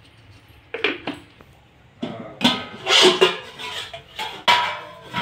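Metal utensils clanking and scraping against a steel kadhai: a handful of irregular sharp clanks with short metallic ringing, the loudest a little past the middle and about a second before the end.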